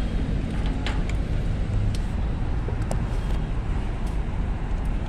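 Steady low rumble of motor-vehicle noise, with a few faint clicks.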